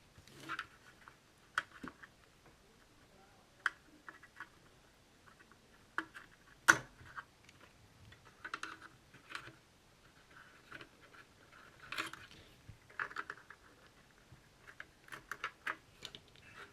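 Irregular small clicks and taps of hands handling a 40-pin 6502 chip and pressing it into a socket on a circuit board, with one sharper click a little under halfway.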